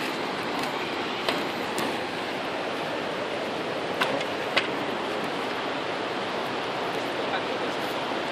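Steady rush of a fast-flowing river, with a few faint clicks and knocks scattered through it.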